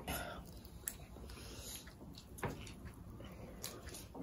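Quiet eating sounds: a few faint clicks and taps of boiled seafood shells being picked apart by hand.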